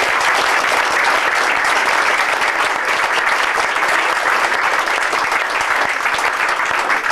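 A roomful of people applauding: dense, steady clapping from many hands at the close of a speech.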